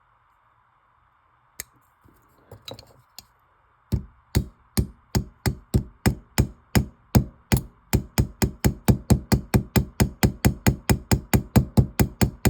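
A few clicks and scrapes, then a small hammer tapping about three to four times a second, quickening slightly: peening a pin through straight razor scales.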